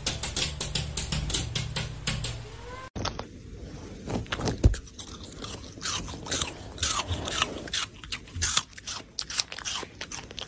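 Golden retriever puppy chewing, a run of irregular sharp crunches close to the microphone. Before it, for the first three seconds or so, a fast even ticking of about five a second over a low hum, which cuts off suddenly.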